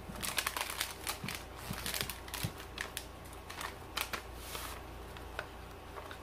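Paper packets of cornbread muffin mix crinkling and crackling as they are torn open and handled, with a short rustle about four and a half seconds in as the dry mix is shaken out into a glass mixing bowl.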